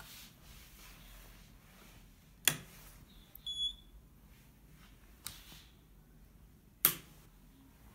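Two sharp knocks of the DDCSV1.1 CNC controller unit being handled, one about two and a half seconds in and one near the end, with a weaker one between. A short high electronic beep from the controller's buzzer comes about a second after the first knock.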